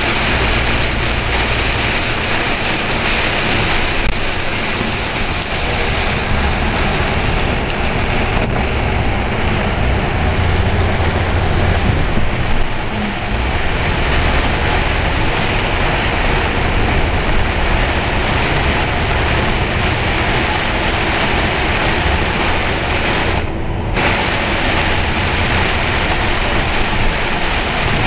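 Heavy rain beating on a moving vehicle's windscreen and body, a steady loud wash of noise with the low rumble of the engine and tyres on the wet road underneath.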